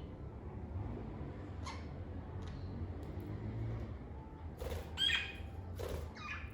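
Lovebirds giving short, sharp chirps, a few spaced apart, with the loudest calls coming in quick succession about five and six seconds in, over a steady low hum.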